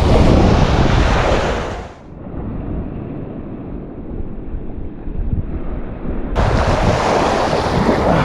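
Surf washing on a beach with wind buffeting the microphone, a steady rushing noise that turns muffled and a little quieter for a few seconds in the middle.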